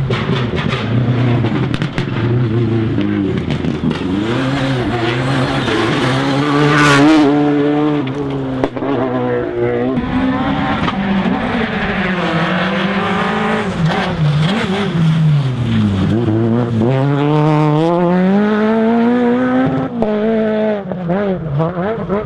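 Rally car engine driven hard along a stage, its pitch climbing and dropping repeatedly as it accelerates, lifts and changes gear, with one deep drop and climb about two-thirds of the way through.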